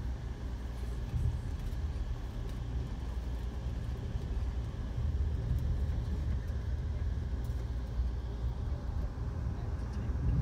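Steady low rumble of a moving passenger train heard from inside the car, its wheels running on the rails, with faint scattered ticks.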